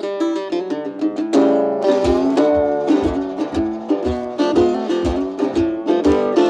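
Background music: a melody of pitched notes over a steady low beat that comes in about two seconds in.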